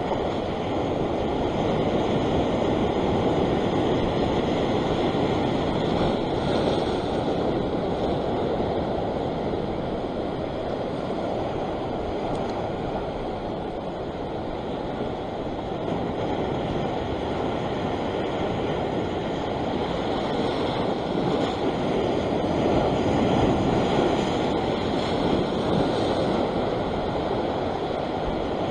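Sea waves breaking and washing over rocks: a steady rushing surf that swells and eases. It is louder in the first few seconds and again about four-fifths of the way in.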